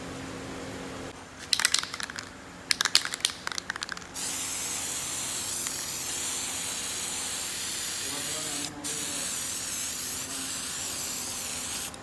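Aerosol spray paint can (Anchor black spray paint): a couple of seconds of quick rattling clicks, then a steady spraying hiss from about four seconds in, with one brief pause about nine seconds in.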